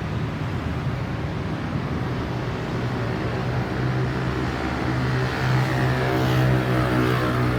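Road vehicle engine running and accelerating, its pitch rising slowly and getting louder from about five seconds in.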